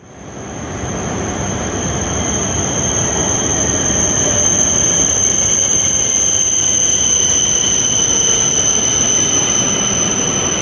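A train at a station platform: a steady rumble with a steady high-pitched whine above it, fading in over the first second or two.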